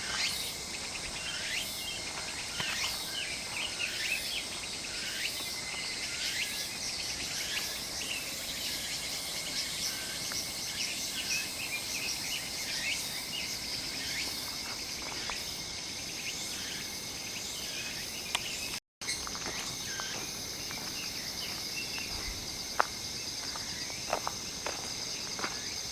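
Insects chirping in a steady high-pitched chorus, with short falling calls repeating about once a second in the first part. After a cut about two-thirds of the way through, the chorus goes on, and a few sharp clicks come near the end.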